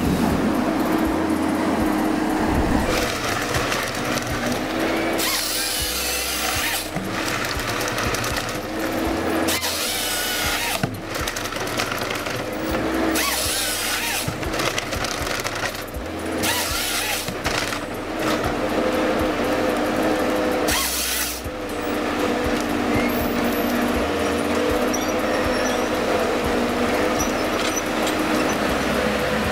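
Ponsse forestry harvester at work: the machine's engine runs steadily while the harvester head's bar saw cuts through logs in about five short bursts, one every three to four seconds.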